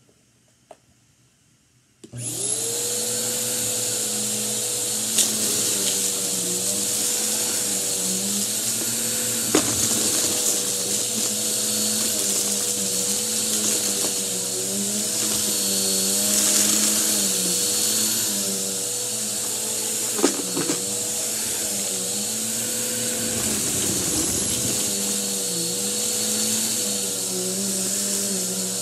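Bissell upright vacuum cleaner switched on about two seconds in, then running steadily as it is pushed into a pile of lint and paper scraps on a rug. Its hum wavers in pitch, and there are a few sharp clicks.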